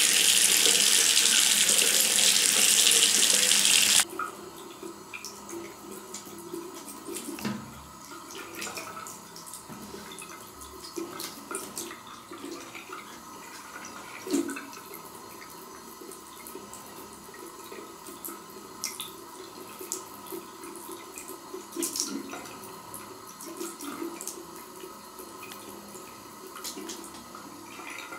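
Bidet tap running, water pouring into the ceramic bowl, cut off suddenly about four seconds in. After that, faint scattered drips, small splashes and light taps as a cat paws at the water left in the bowl.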